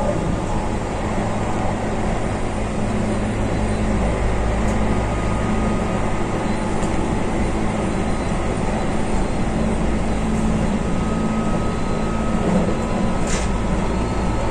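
Keihan electric train running, heard from inside the front car: a steady rumble of wheels on rail with a faint steady whine. A short, sharp high sound comes about 13 seconds in.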